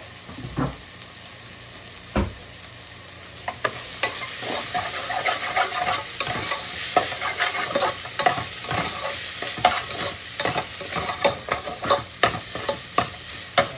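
Ground turkey sizzling as it browns in a frying pan, stirred and scraped with a utensil in quick irregular strokes. The sizzle and stirring pick up about three and a half seconds in, after two dull thumps.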